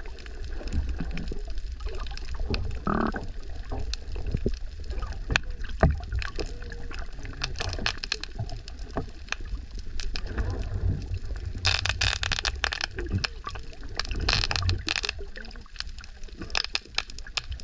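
Muffled underwater sound from a camera held under the sea: water moving and gurgling, with a low rumble and scattered clicks, and a short burst of hiss about twelve seconds in.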